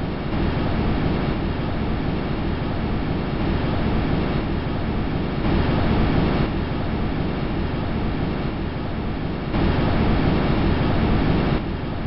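Steady rushing noise picked up by a microphone on the Huygens probe as it descended through Titan's atmosphere. It grows louder for about a second some five seconds in, and again for about two seconds near the end.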